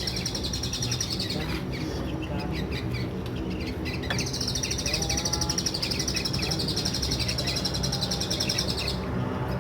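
A small bird singing a fast, high trill. The trill breaks off after about a second and a half, with short scattered chips in the pause, and returns for several seconds from about four and a half seconds in.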